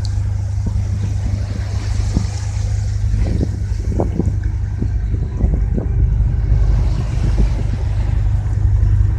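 Tugboat's diesel engine running with a steady low drone while towing a barge at sea.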